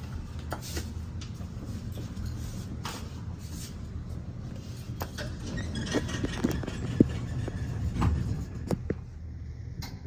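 The thyssenkrupp Synergy passenger elevator running: a steady, calm low motor and car hum, with scattered light clicks and knocks that are busier a little past the middle.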